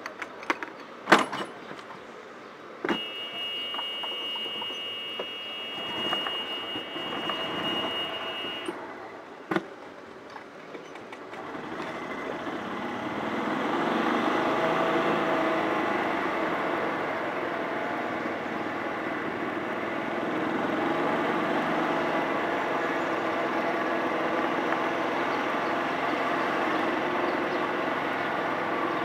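Vehicle driving slowly, its motor and road noise steady and louder from about twelve seconds in. Before that come several sharp clicks and knocks, and a high steady tone for about six seconds.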